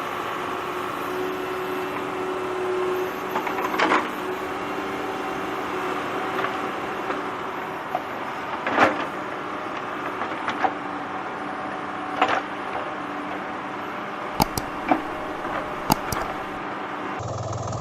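Small toy motor whirring steadily, with sharp plastic clicks and knocks every few seconds. Near the end it cuts suddenly to a lower engine-like hum.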